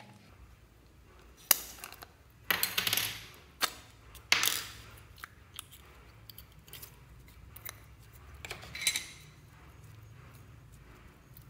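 Clear slime squeezed and pulled apart by hand, giving sharp sticky clicks and pops in several short bursts with quiet stretches between.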